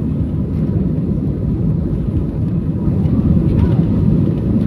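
Airliner cabin noise: a steady, loud, low rumble of the jet engines and airflow heard from inside the cabin after takeoff, growing a little louder about three seconds in.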